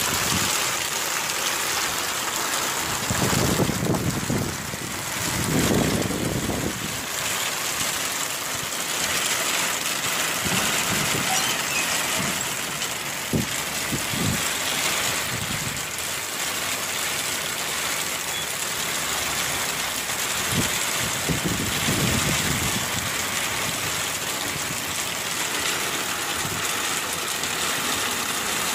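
Heavy rain pouring steadily, a dense unbroken hiss, with a few low rumbles rising out of it, a couple in the first several seconds and again about two-thirds of the way through.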